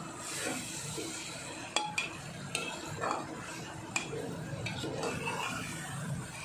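Metal ladle stirring potato chunks through frying masala in a metal pot: a steady scraping sizzle broken by several sharp clinks of the ladle against the pot.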